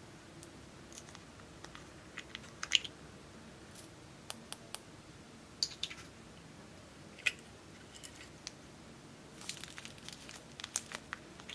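Slime being handled and pressed, giving scattered sharp little pops and crackles, a few at a time, with a busier cluster near the end.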